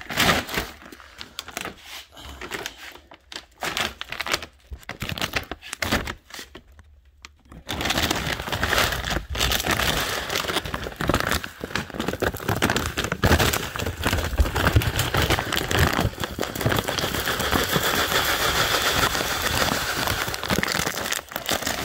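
Paper bag of cat litter crinkling and rustling as it is opened and handled. About eight seconds in, a steady, continuous rushing rattle of litter granules begins as the litter is poured into a plastic litter box.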